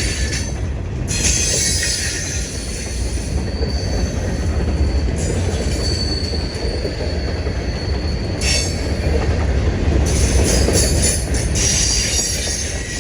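Train rolling past with a steady low rumble and wheel-on-rail noise, with a few brief high-pitched wheel squeals.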